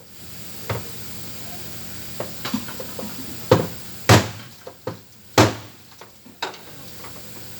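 A few sharp knocks and clanks from hand work on the truck's fuel pump installation, the loudest about three and a half, four and five and a half seconds in, with lighter clicks between.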